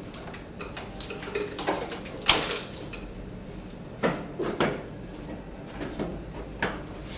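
A series of irregular knocks, clunks and scrapes, about a second apart, the sharpest a little over two seconds in.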